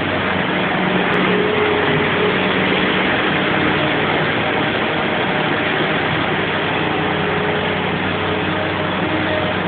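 Bobcat skid-steer loader's engine running steadily at working speed while the loader shovels wheat, with a dense rushing noise over its steady hum.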